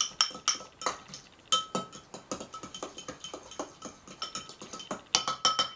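A utensil clinking repeatedly against a hard container as something is stirred or scooped, each clink ringing briefly with a clear tone, with a quick run of clinks about five seconds in.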